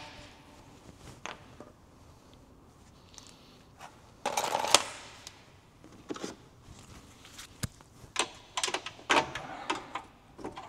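Scattered light clicks and taps of a hand tool working at a lower control arm bolt on the car's underside, with one brief, louder noisy rush about four seconds in.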